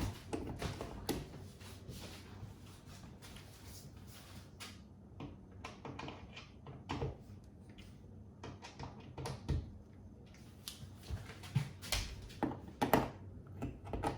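Scattered light knocks and clicks of a kitchen rail's fittings being handled and tightened with an Allen key, with a few louder knocks near the end.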